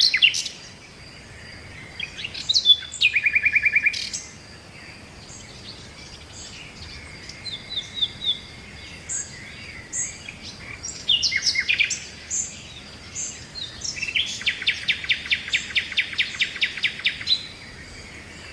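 Wild birds singing and calling with assorted high chirps and whistles: a short fast trill a few seconds in, and a long fast trill near the end. A faint steady high insect drone runs underneath.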